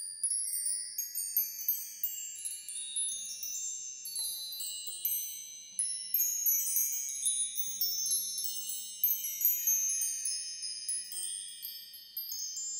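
Tinkling chimes: many high, bell-like notes struck one after another, ringing on and overlapping.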